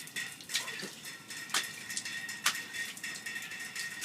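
Rain falling, with a few sharp taps or splashes about a second apart and a faint steady high tone underneath.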